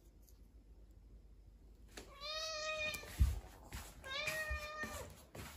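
Domestic cat meowing twice, each call about a second long and bending up then down in pitch, asking to be fed. A short, dull, deep thump comes just after the first meow.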